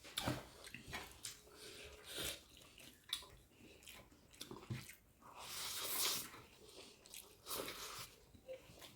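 Close-up eating sounds: chewing a mouthful of rice and greens with small wet clicks, smacks and crunches, and a brief hiss about six seconds in.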